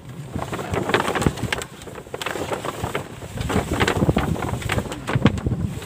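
Wind gusting across the microphone, an uneven rushing buffet that rises and falls.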